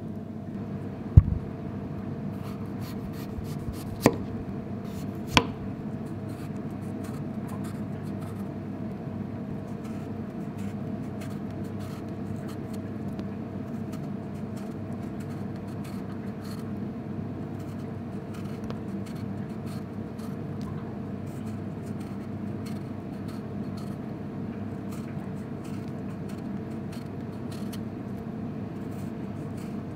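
Kitchen knife knocking three times on a plastic cutting board in the first six seconds, the first knock the loudest, then faint ticking and scraping as a knife peels a Japanese turnip, over a steady low hum.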